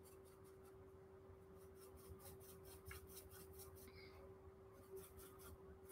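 Near silence: a paintbrush faintly scrubbing oil paint onto a paper chart in quick repeated strokes, with a steady faint hum behind it.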